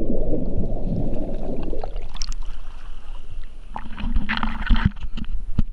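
Dense underwater bubbling from a scuba diver's entry, heard muffled beneath the surface. About two seconds in it gives way to sea water sloshing and splashing at the surface, with a brief hiss a little past four seconds.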